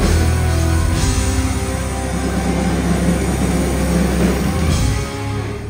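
Live rock band playing loud, heavy rock on electric guitars, bass, keytar and a drum kit.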